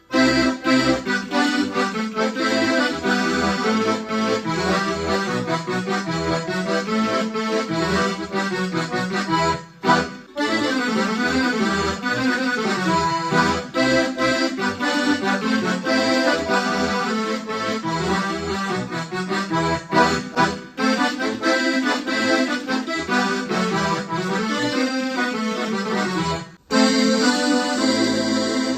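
Russian garmon (button accordion) playing a lively tune, a melody over short repeated bass notes. The playing breaks off briefly about ten seconds in and again near the end.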